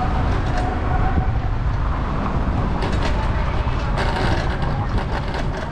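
Steady low rumble of riding a bicycle with a GoPro through city traffic: wind and road noise on the camera's microphone, with passing cars. From about three seconds in, a run of quick clicks and rattles comes in over it.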